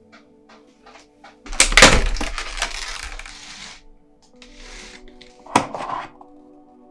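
Product packaging being handled during an unboxing: a loud rustling, crackling stretch lasting about two seconds, then a single sharp click or snap about halfway through, over background music.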